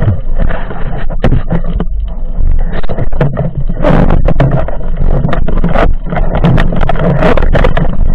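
Muffled underwater rumble and water rush picked up through an underwater camera housing as a spearfisher swims with his speargun, with many irregular clicks and knocks throughout.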